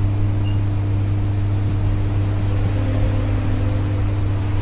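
Steady low machine hum with no change in level.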